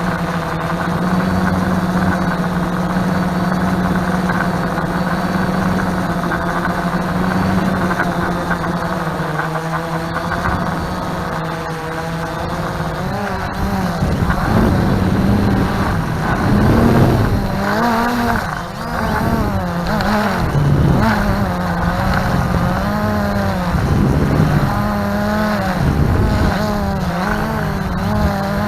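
Multirotor drone's motors and propellers buzzing in a steady hover, then from about halfway the pitch repeatedly rises and falls as the motors speed up and slow down.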